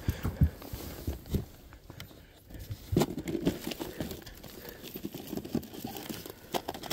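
Irregular run of short knocks, clicks and crinkling rustles, thickening into a rapid patter about three seconds in.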